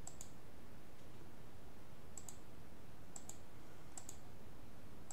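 Computer mouse button clicks: about five sharp, light clicks spread unevenly, each a quick pair of ticks as the button goes down and comes up, over a faint steady hiss.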